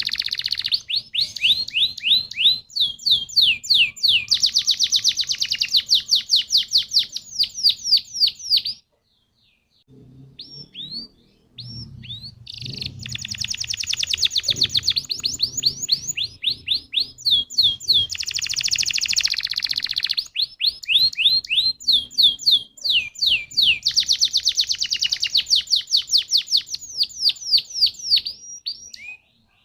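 Domestic canary singing long rolling trills of rapid, evenly repeated high notes, with a brief pause about nine seconds in.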